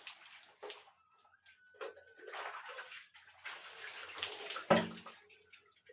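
Water poured over long hair during a wash, splashing in uneven gushes with short pauses. A short, sharp knock about three quarters of the way through is the loudest sound.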